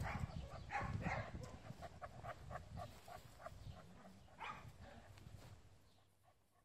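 A dog panting quickly, about four breaths a second, with a few louder breaths about a second in and again past four seconds. The panting fades out near the end.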